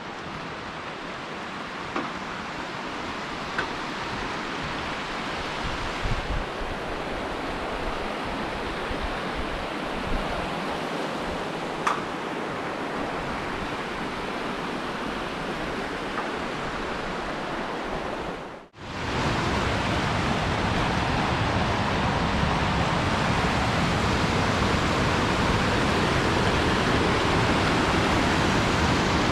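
Rushing water of a creek and waterfalls, a steady rush that is louder and fuller after a cut about 19 seconds in, the stream running high after hard rain. A few light clicks sound in the first part.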